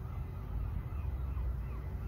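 Outdoor ambience: a fluctuating low rumble of wind on the microphone, with birds calling over it in many short chirps.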